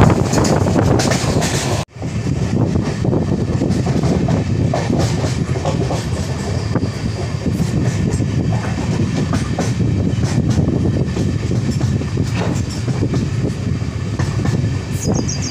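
LHB passenger coach running at speed: a steady rumble and clatter of wheels on the track, with wind rushing past the open door. The wind is loudest for the first two seconds, and then the sound cuts out for an instant.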